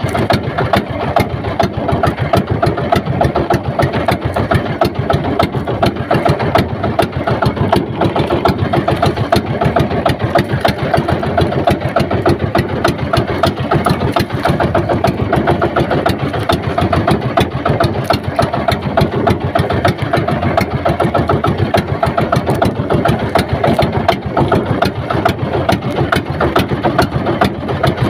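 Small boat engine running steadily at a constant speed, its rapid firing pulses even throughout.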